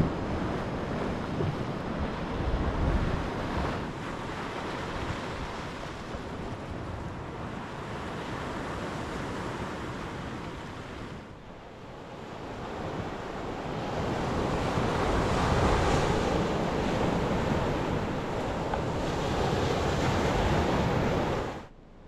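Sea surf breaking and washing over a flat rock ledge, with wind buffeting the microphone. The sound dips briefly about halfway through, builds up again, and cuts off just before the end.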